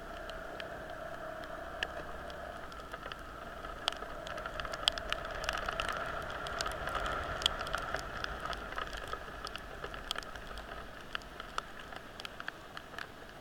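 Heavy rain, with many sharp raindrop ticks close by, over the hiss of traffic on a wet road that swells about halfway through and fades toward the end.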